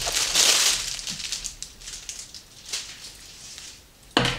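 Plastic packaging crinkling as it is pulled open, loudest in the first second, then fainter rustling as the canvas apron is lifted out. A single sharp knock near the end.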